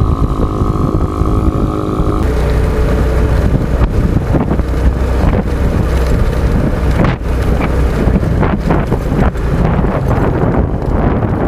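Honda XRM 125's single-cylinder four-stroke engine running as the motorcycle is ridden, with wind rushing over the microphone. About two seconds in, the engine's steady note drops away and a lower, rougher drone continues under the wind.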